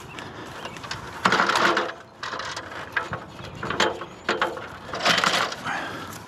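Metal work gear clicking and rattling in four short bursts.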